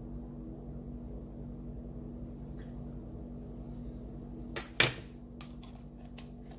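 Steady low hum, then two sharp clicks close together about four and a half seconds in and a few faint ticks after, as a vanilla bottle and its cap are handled over a tiled counter.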